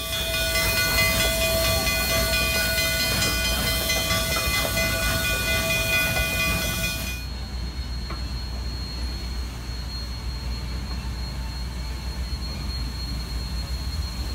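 Durango & Silverton K-28 narrow-gauge steam locomotive No. 473 venting steam: a loud hiss with several steady ringing tones that cuts off suddenly about seven seconds in. After it comes the quieter low rumble of the locomotive moving slowly, with a faint steady high whine.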